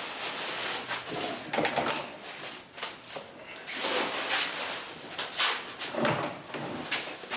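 Rummaging while searching for calipers: an irregular run of rustles, clicks and knocks as things are moved about.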